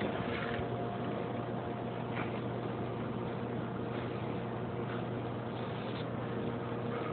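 Steady mechanical hum of a running motor or engine, even in level, with a few faint brief ticks over it.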